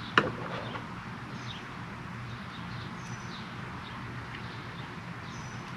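Birds chirping now and then over a steady low hum, with one sharp click about a quarter of a second in.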